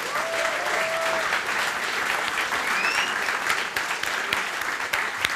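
Audience applauding: a dense, steady round of clapping from a seated crowd that starts just before and fades out just after.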